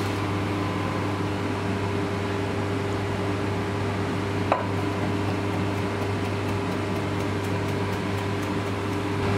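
Steady hum of commercial kitchen machinery: a low drone with a few fixed tones above it. Faint, regular knife chops on a wooden chopping board come through it as coriander is chopped, with one sharp click about halfway through.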